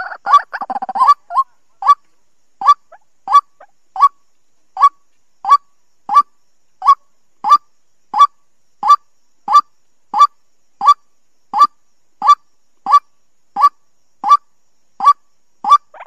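White-breasted waterhen calling: a burst of harsh chattering croaks, then a long run of single short notes repeated evenly, about three every two seconds.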